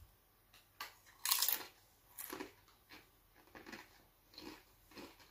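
Doritos tortilla chip bitten and chewed. There is a loud crunch about a second in, followed by softer chewing crunches every half second to a second.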